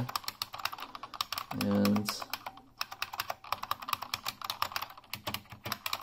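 Buckling-spring switches of a Unicomp Ultra Classic keyboard clicking under rapid typing, each keystroke giving a substantial click, with a short break a little after two seconds before the typing resumes.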